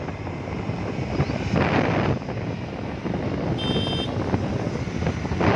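Wind buffeting the microphone over a low rumble, with louder gusts about two seconds in and near the end. A short high beep sounds just past the middle.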